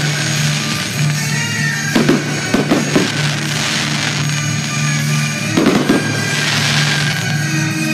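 Aerial fireworks shells bursting: a quick cluster of bangs about two seconds in and another near six seconds, each followed by a high hiss, with music playing underneath.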